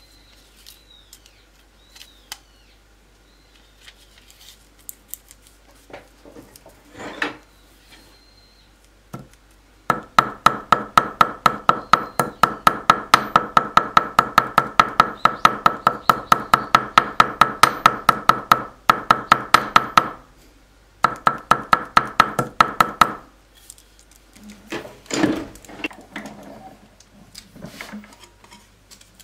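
Small steel-faced hammer tapping rapidly and evenly on a steel bench block, flattening a thin piece of metal laid between sheets of paper: about four or five ringing strikes a second, each at the same pitch, keeping on for over ten seconds with one brief pause, then stopping. Softer handling sounds of paper and tools come before and after.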